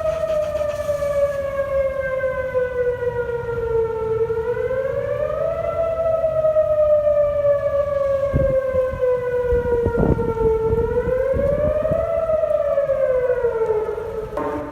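Outdoor civil-defense warning siren sounding a wail during a test: its tone climbs quickly, then slides slowly down, in a cycle that repeats about every six seconds.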